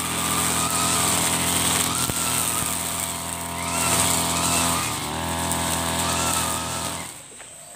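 Mitsubishi TB43 two-stroke brush cutter running under load while cutting grass, with a whine that rises and falls every second or two over the steady engine note; the gear head is short of grease. The sound cuts off suddenly near the end.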